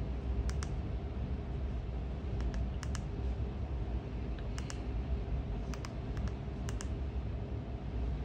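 Buttons on a TV box's handheld remote control being pressed, about six short clicks spaced a second or so apart, most of them a quick double click of press and release. A steady low hum runs underneath.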